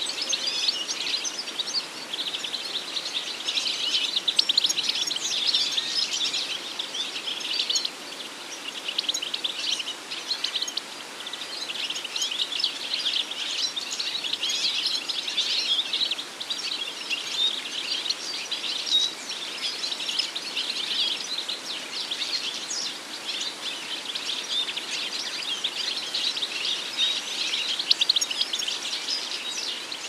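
European goldfinch song: a fast, continuous twittering of rapid high chirps and trills that runs on without a break.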